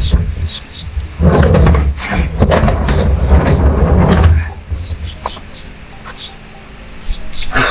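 Birds chirping repeatedly in the background, with a loud low rumbling, handling-type noise and a few clicks lasting about three seconds in the middle.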